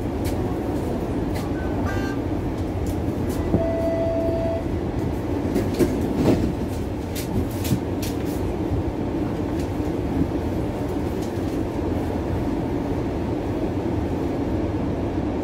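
Inside a Bombardier Flexity Outlook streetcar: steady low rumble and hum of the car, with scattered light clicks and knocks and one short steady tone about four seconds in.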